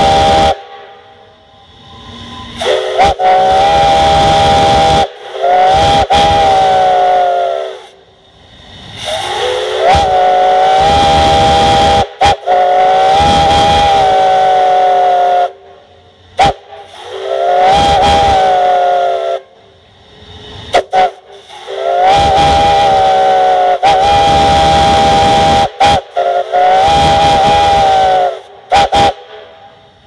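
A group of three Lunkenheimer brass steam whistles blown together in a series of about six long blasts. Each blast is a chord of several tones that bends up as the valve opens and sags as it closes, with short toots between blasts and steam hissing in the pauses.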